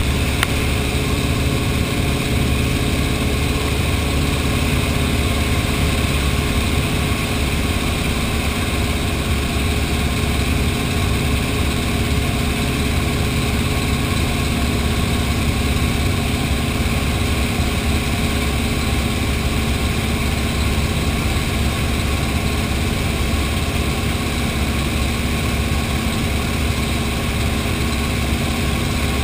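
Antonov An-2 biplane's nine-cylinder radial engine and propeller running steadily in flight, heard from inside the cabin as a loud, constant drone with a strong low end.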